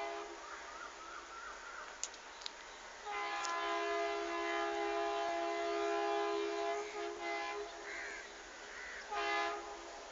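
Rajdhani Express locomotive's two-tone air horn: one long blast of about four seconds, starting about three seconds in, then a short blast near the end.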